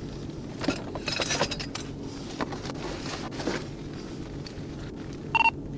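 Light metallic clinks and rustles, like keys, handcuffs or duty-belt gear moving, over a steady low hum. A short electronic beep sounds near the end.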